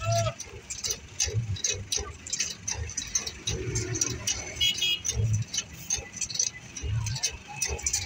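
Road-surfacing site noise: tractor engines running, with irregular low thumps and many sharp clicks and rattles on top.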